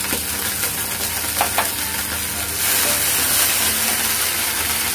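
Kakrol stuffing sizzling in mustard oil in a non-stick frying pan as poppy-seed and mustard paste is stirred in with a spatula. The sizzle grows louder a little past halfway, and there are a couple of light spatula knocks in the first two seconds.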